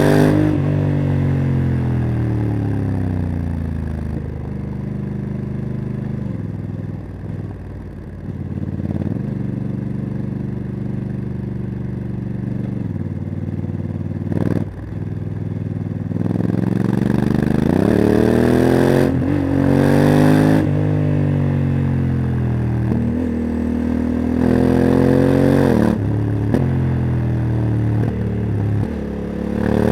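Honda CRF1100L Africa Twin's parallel-twin engine with a LeoVince exhaust, heard from the rider's seat. Revs fall away under engine braking at the start, hold through steps as the DCT gearbox shifts, then rise sharply several times as the bike accelerates out of corners. There is one sharp knock about halfway through.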